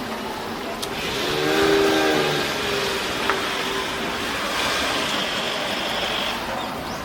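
A Seibu Shinjuku Line electric train running through a level crossing. It is loudest about two seconds in, where a pitched whine swells and fades, with a hissing rush of wheels on rail that dies away near the end.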